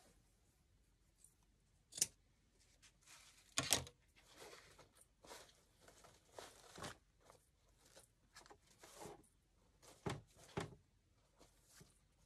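Artificial greenery stems and wired ribbon rustling as they are handled and pushed into a grapevine wreath, with a few sharp clicks and snaps. The loudest come about 2 seconds in and just before 4 seconds.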